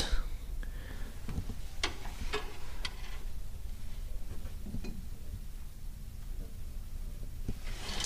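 Quiet handling noise: three light clicks about two to three seconds in, over a low steady hum.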